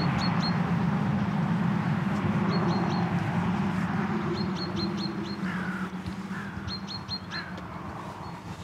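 Small birds calling in quick runs of three or four short, high chirps, with a few lower falling calls about two-thirds of the way through. Under them a steady low rumble, the loudest thing, eases off toward the end.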